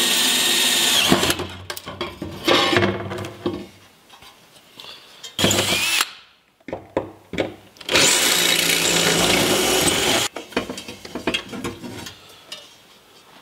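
Cordless drill-driver backing screws out of a table mount on an aluminum camper door, running in four bursts of whining motor: a longer run at the start, a short one about two and a half seconds in, a brief one near the middle, and the longest, about two and a half seconds, about eight seconds in. Light clicks and clatter of the hardware being handled fill the gaps and the end.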